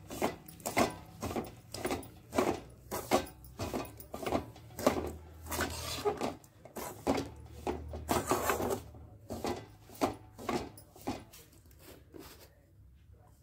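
A perforated steel spatula scraping and stirring a thick, dry mix of chili powder and ground spices around a metal kadhai, in quick repeated strokes about two to three a second that stop near the end.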